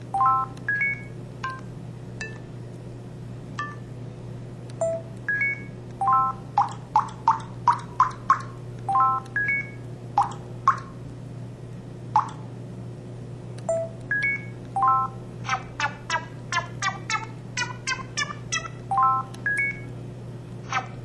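MS230 mobile phone's built-in sound effects played through its speaker one after another: short electronic beeps and keypad-like tones at changing pitches, some in quick runs of several notes.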